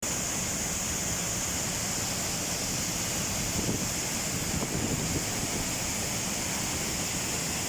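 Waterfall cascading into a river: a steady, even rushing of falling water.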